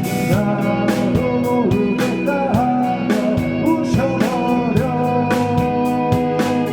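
Rock band playing live: guitars over a steady, fast drum beat, with a bending melodic line on top.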